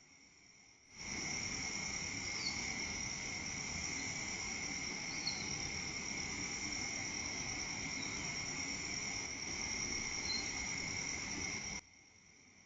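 Crickets and other night insects chirring steadily as a high, even drone over a hiss of background noise. It gets much louder suddenly about a second in and drops back just as suddenly near the end.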